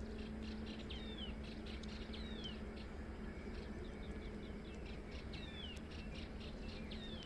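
Wild birds calling: a short whistled note that falls in pitch, heard four times, among scattered quick chirps, over a steady low hum.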